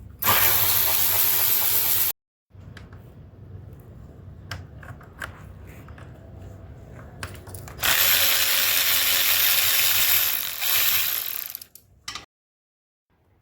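Power ratchet run in two bursts, about two seconds and then about four seconds long, driving a fastener, with quieter clicks of tool handling between them.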